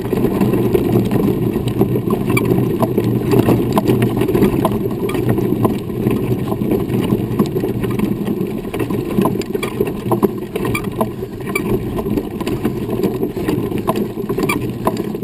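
Running wheelchair's tyres rolling over a dirt and gravel road: a steady rumble with scattered crackle of grit and small stones.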